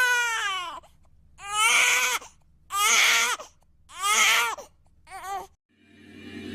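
A baby crying in a run of short wails about a second apart, each rising then falling in pitch, the last one brief. Near the end a steady droning sound fades in.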